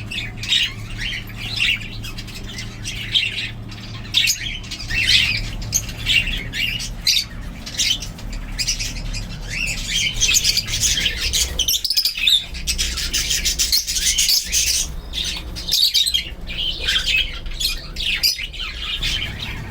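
Budgerigar chicks calling, many high calls overlapping without a break, over a steady low hum.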